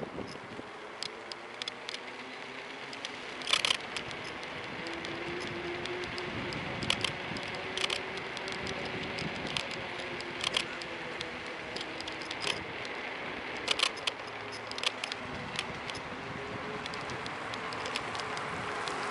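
Phone holder on a Kugoo V1 Plus electric scooter creaking and clicking in irregular sharp snaps while riding, the loudest about three and a half seconds in. Underneath runs steady road and wind noise with a faint whine that rises and falls.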